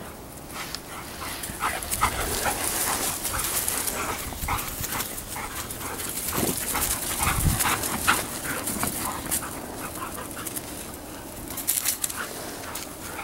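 Dogs at rough play, giving many short, high yelps and whimpers in quick succession.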